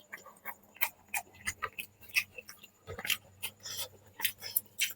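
Close-up eating sounds of a person eating chicken curry with rice: wet chewing and mouth smacks, heard as a string of short, sharp, irregular clicks several times a second.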